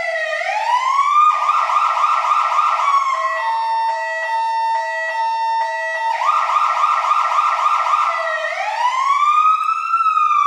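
Fire truck's electronic siren cycling through its patterns: a rising wail, then a fast yelp, then a few seconds of steady pulsing horn-like tones, then the yelp again, and another wail that rises and begins to fall near the end.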